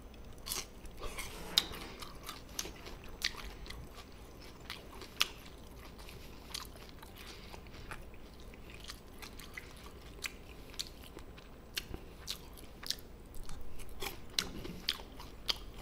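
A person eating: quiet chewing with occasional crunches and scattered short, sharp clicks, fairly faint.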